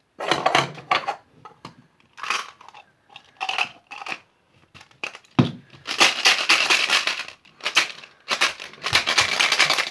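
Toy slime being squeezed and worked by hand: irregular crackling, crunching bursts, the longest lasting a second or two, with a sharp click about halfway through.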